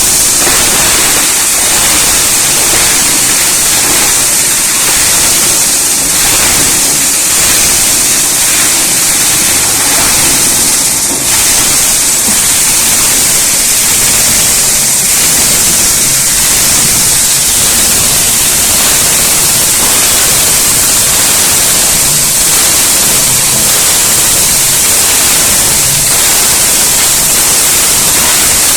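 Scrap grinder machine running with a loud, steady grinding noise, dipping briefly about eleven seconds in.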